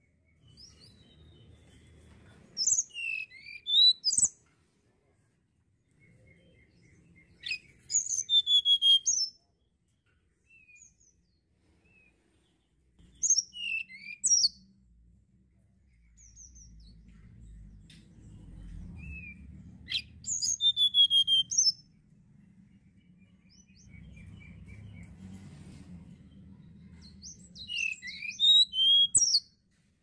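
Male tledekan gunung (hill blue flycatcher) singing: five bouts of high, rapid whistled and trilled notes, each a second or two long, separated by pauses of a few seconds.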